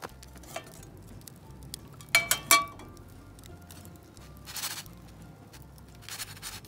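Metal camp frying-pan lid coming off and clinking against the pan and grill grate: three quick ringing clinks about two seconds in. Two brief hissing noises follow later, over faint crackling from the wood fire.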